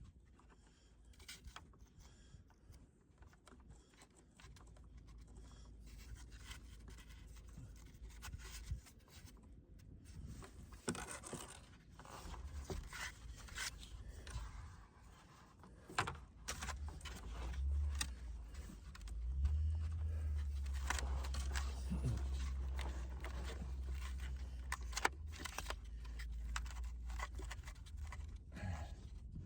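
Scattered scraping, rustling and sharp clicks of someone handling things at close range, with a low rumble through the second half.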